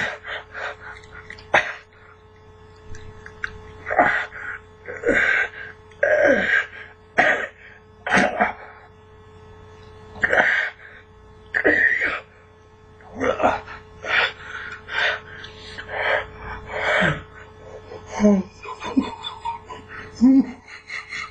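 A man's short coughs, gasps and sputters, roughly one a second, as he chews something that burns his mouth.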